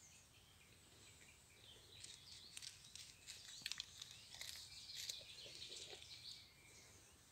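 Small birds chirping and twittering, a flurry of quick high chirps busiest through the middle few seconds, over faint outdoor background noise.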